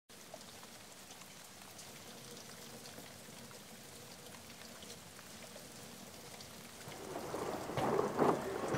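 Rain falling on foliage: a steady hiss with scattered drip ticks. About seven seconds in it grows louder, with a few sharp knocks.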